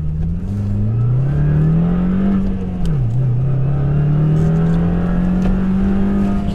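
2015 Subaru WRX's turbocharged flat-four running through its Invidia N1 cat-back exhaust under hard acceleration. Revs climb, drop sharply with an upshift about three seconds in, then climb again in the next gear.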